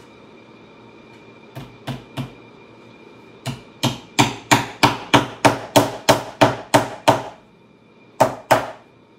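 A hammer striking the galvanized-metal seat strainer on a saddle tree, tacking it down: three light taps, then a run of about a dozen harder blows at about three a second, and two more blows near the end.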